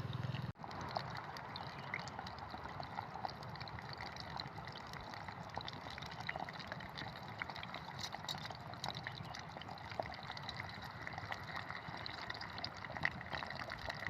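Taro pieces deep-frying in hot oil: a steady sizzle with frequent small pops and crackles.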